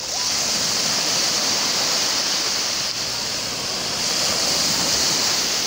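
Small sea waves breaking and washing up a sandy beach: a steady hiss of surf that swells a little about four seconds in.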